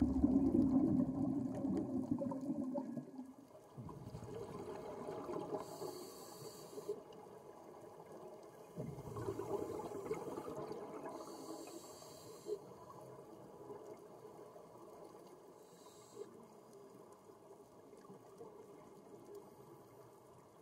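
A scuba diver's regulator breathing underwater: long bubbling rumbles of exhaled air, the loudest at the start, with three short high hisses of inhalation through the regulator.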